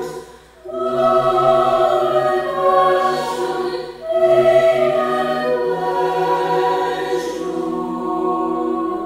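A small ensemble of young male voices singing sustained chords in close harmony, a cappella. The chords break off briefly about half a second in and again just before four seconds in, then resume.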